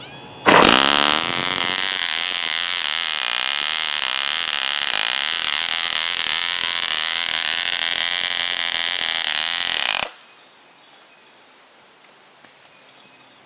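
1973 Fox 29 two-stroke glow engine, run with no muffler, catching about half a second in as the electric starter spins it and revving straight up to a loud, high whine that wavers a little in pitch. It cuts out suddenly about ten seconds in.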